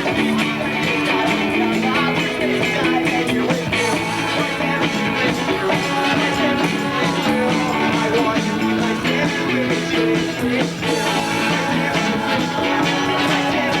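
A live band playing an instrumental stretch of a rock song, with full band music throughout.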